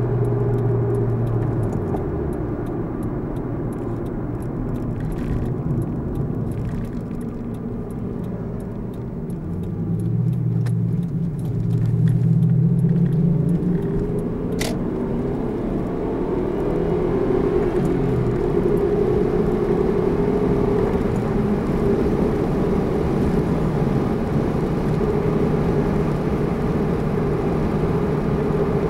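Car engine and road noise heard from inside the cabin while driving. The engine note drops a couple of seconds in, then climbs as the car speeds up around ten seconds in, rising again before settling to a steady cruise, with a single sharp click near the middle.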